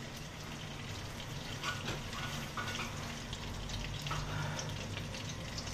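Oil heating in a wok on a gas stove, giving a steady low sizzle with small crackles as it comes up to frying temperature.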